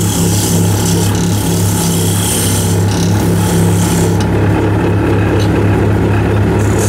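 Wood lathe running with a steady motor hum while a turning tool cuts the spinning wood, a scraping hiss that is strong for the first few seconds, eases, and returns near the end.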